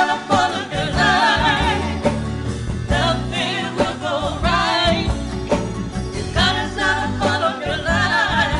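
Gospel song: a woman singing long, wavering notes in several phrases over steady instrumental accompaniment.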